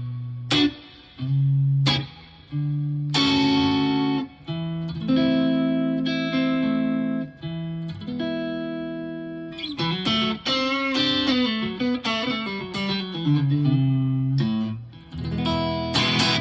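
Fender electric guitar played through a UAFX Dream '65 amp-emulator pedal, a model of a 1965 Fender Deluxe Reverb amp. Sharply struck chords that ring on, then a quicker run of single notes about ten seconds in, ending on a strummed chord.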